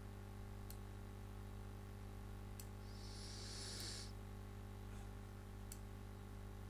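Faint steady electrical hum of the recording setup, with a few soft computer-mouse clicks as a sofa is dragged into place, and a brief soft hiss about three seconds in.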